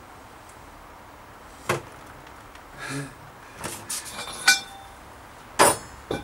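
A series of separate knocks and clinks from bicycle parts or tools being handled and set down. About six in all, with one just past the middle giving a short metallic ring.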